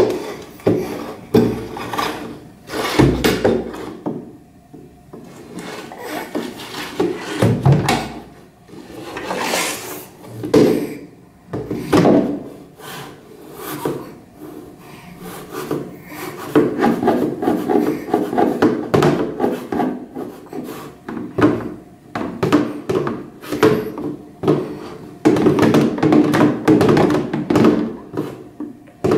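A plastic paint tub and its thin metal wire handle being pulled and knocked about by a baby on a tiled floor: irregular knocks, rattles and scrapes of plastic and wire.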